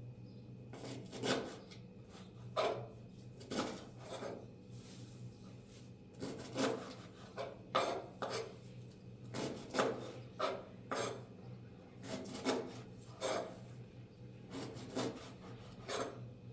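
Repeated rubbing, rasping strokes against wood, uneven and about one or two a second, over a steady low hum.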